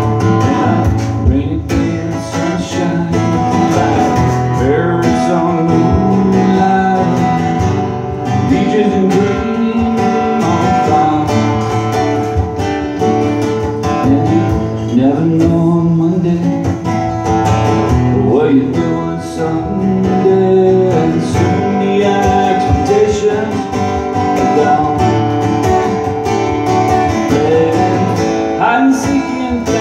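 Steel-string acoustic guitar strummed steadily in a country-style rhythm, with a wavering melody line carried over the chords.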